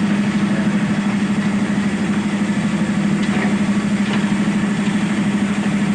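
Excavator diesel engine running steadily with a constant low hum.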